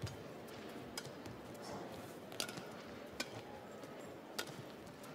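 Badminton rally: sharp cracks of rackets striking the shuttlecock, five in about four and a half seconds, over the steady background hiss of an indoor arena.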